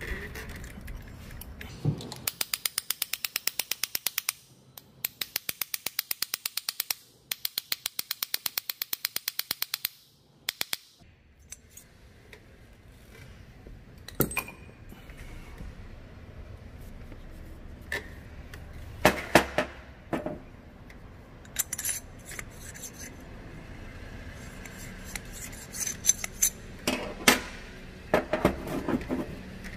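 Ratchet wrench clicking rapidly and evenly, about ten clicks a second, in three runs of two to three seconds each, followed by scattered metallic clanks and knocks of parts being handled.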